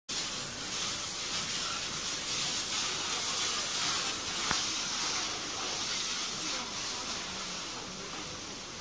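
Water spraying from the nozzles of a CC-695 tunnel car wash onto a car: a steady, high hiss that eases off slightly near the end. One sharp click comes about halfway through.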